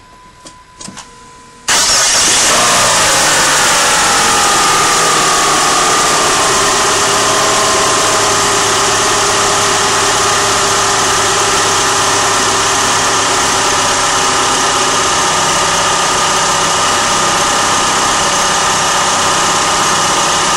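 2004 PT Cruiser's 2.4-litre four-cylinder engine starting about two seconds in, its revs falling back over the next few seconds and then idling steadily. This is the engine's first run on freshly fitted spark plugs and plug wires.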